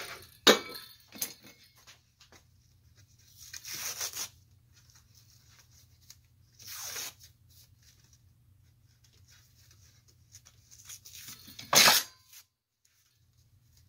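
Handling a metal swing-arm desk lamp and its electrical cord on a workbench: a sharp metal knock about half a second in, then a few brief rasping swishes as the cord and base are worked, the loudest near the end.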